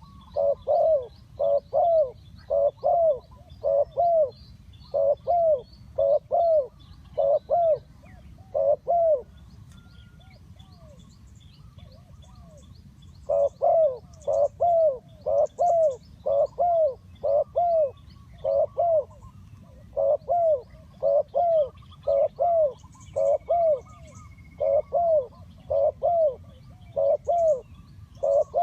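Spotted dove cooing: short, loud, downward-arching coos repeated in quick pairs about once a second, stopping for about four seconds a third of the way through, then carrying on. Faint high chirps of small birds behind.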